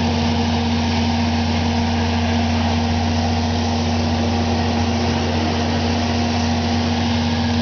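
An engine running steadily at constant speed: a deep, unchanging drone with a steady hum above it.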